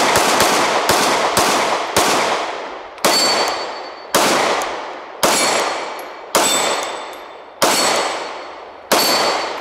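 Glock 19 Gen 2 9mm pistol firing: a quick string of shots in the first second, then steady single shots about once a second. Each shot is followed by a long echo.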